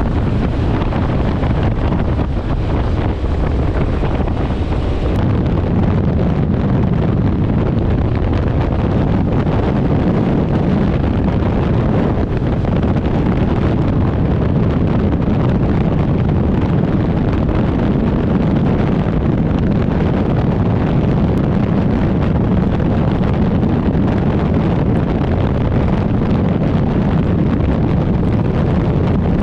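Steady wind roar buffeting the microphone of a motorcycle at road speed, over the running V-twin engine of a Harley-Davidson Street Glide.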